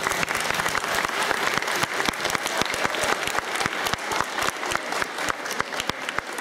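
An audience of schoolchildren applauding, many hands clapping unevenly at the end of a dance performance.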